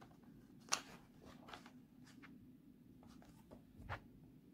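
Pages of a picture book being turned and handled by hand: a sharp paper crackle a little under a second in, then a few lighter paper rustles and a soft tap near the end.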